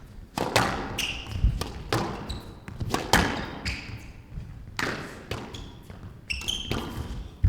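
Squash rally: the ball is struck by rackets and hits the walls in sharp smacks, roughly one every half second, with shoes squeaking briefly on the court floor.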